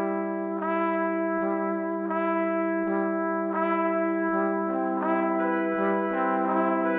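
Background instrumental music: a held low note under a slow line of sustained, horn-like notes, a new note entering about every second.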